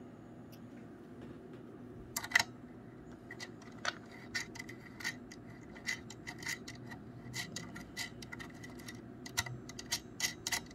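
Irregular small clicks and scrapes of fingers working the threaded metal connector of a SAW bandpass filter onto a Heltec Helium miner's antenna port, handled close to the microphone. A faint steady hum runs underneath.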